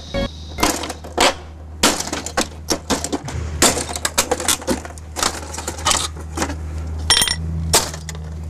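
A hatchet chopping into a stacked hi-fi stereo system's casing: a string of irregular sharp blows, roughly two a second.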